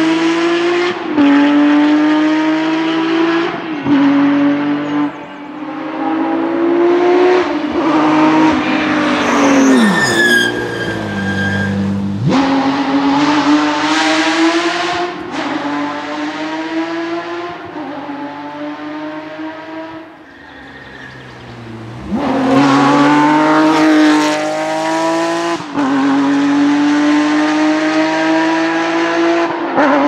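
Porsche 911 rally cars' flat-six engines at full throttle, climbing in pitch through the gears with a short drop at each shift. About ten seconds in, a car's pitch falls steeply as it passes and brakes. After a lull, another car comes in loud just after twenty seconds.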